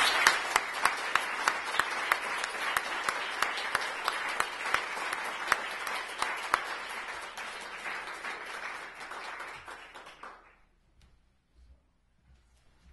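Audience applauding, with one person's distinct claps standing out at about three a second; the applause tapers off and dies away about ten seconds in.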